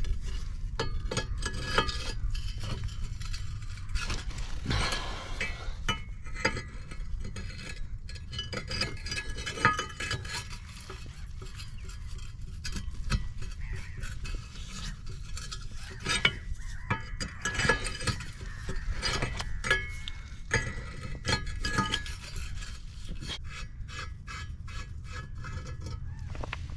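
Metal tools clinking and scraping on a boat's propeller nut and tab washer as the nut is worked off the shaft: irregular clicks and knocks throughout, over a steady low rumble.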